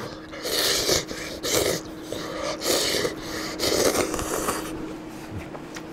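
A man slurping noodles with chopsticks: about four noisy sucks of air and noodle, each about half a second long and roughly a second apart, over a faint steady low hum.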